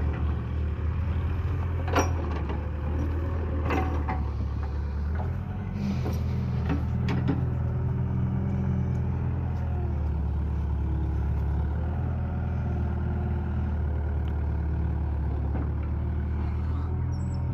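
Heavy diesel engine running steadily at a constant speed, with a few sharp clicks over it.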